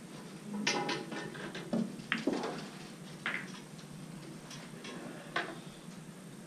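Pool balls clicking: a cue striking the cue ball and balls knocking together, several sharp clicks spread over a few seconds.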